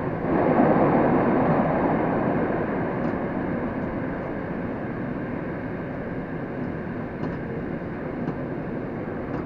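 Metro train running through a tunnel, heard from the driver's cab: a steady noise of wheels on rail. It swells about half a second in, then slowly eases off.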